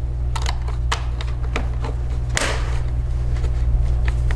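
Scattered sharp little clicks and taps of a small Phillips screwdriver and screw against a laptop's plastic bottom case as the last screw goes in, the strongest about two seconds in, over a steady low hum.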